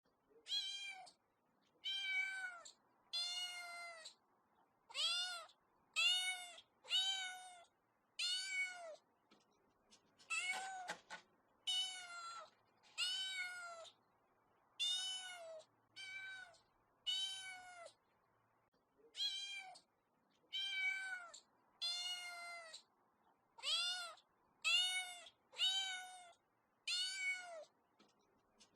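A kitten meowing over and over, about one high-pitched meow a second. Each meow rises and then falls in pitch, with a couple of short pauses between runs.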